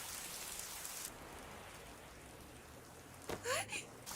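Heavy rain pouring down, a steady hiss that turns duller about a second in. Near the end comes a short vocal sound with a rising pitch.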